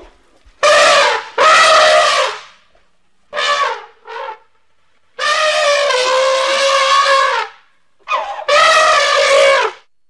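Steppe mammoth sound effect: a run of loud, elephant-like trumpet calls, about six of them, some short and one lasting about two seconds just past the middle.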